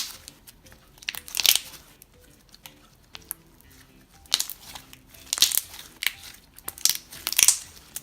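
Thick slime with small foam balls being squished and stretched by hand, giving bursts of crackling pops and clicks, about five loud ones. Faint background music runs underneath.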